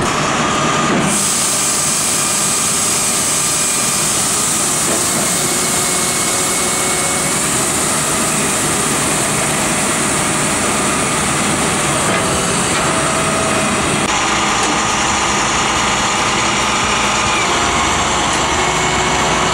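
Flatbed rollback tow truck running with its bed tilted for loading, giving a steady, hissy mechanical noise that fills out about a second in.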